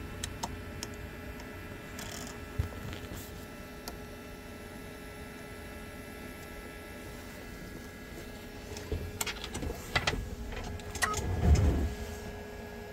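Keyline electronic key-cutting machine humming steadily at idle between the decode and the cut. A few clicks and knocks of handling come near the end, the loudest a low thump.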